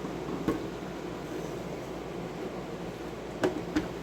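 Steady room hum with a few short knocks and clicks, one about half a second in and two near the end, as the camera is handled and repositioned.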